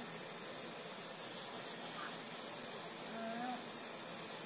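Steady background hiss of room noise, with one short voiced sound from a person a little over three seconds in.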